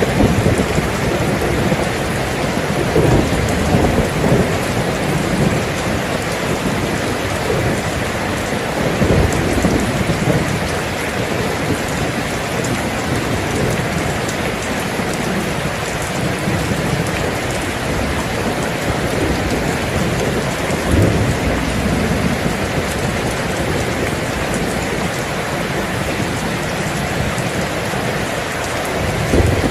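Steady heavy rain, with low rumbles that swell and fade every few seconds.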